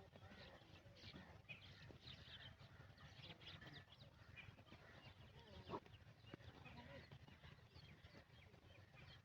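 Faint outdoor ambience full of small bird chirps and calls, with one sharp click a little past the middle.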